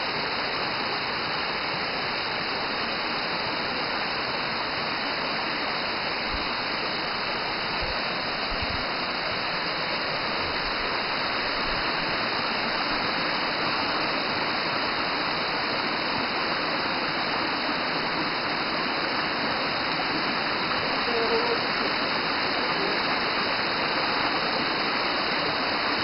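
Waterfall cascading over mossy rock ledges into shallow pools: a steady rush of falling and splashing water.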